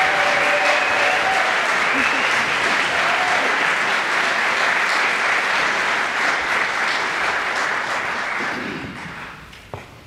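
Audience applauding a men's barbershop chorus, with the chorus's last sung chord ringing out under it for about the first second. The applause fades away between about eight and a half and nine and a half seconds in.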